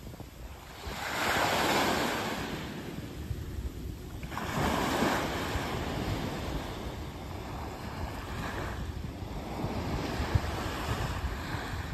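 Small sea waves washing up onto a sandy beach, in three swells a few seconds apart, the last one softer.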